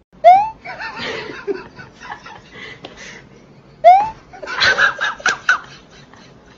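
A person laughing in short, choppy bursts. A short, loud rising tone sounds twice, about three and a half seconds apart, and each time the laughter follows it.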